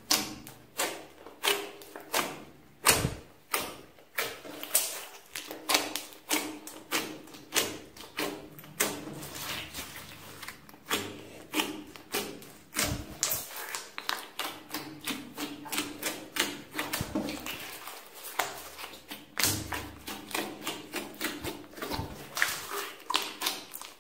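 Hands kneading and pressing a large mass of glossy slime, making a run of sharp clicks and pops, about two a second. Twice there is a deeper thud.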